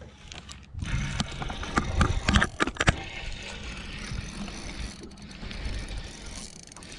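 Spinning reel cranked steadily to bring in a hooked bass, its gears whirring close up. Sharp clicks and knocks of handling come through in the first few seconds.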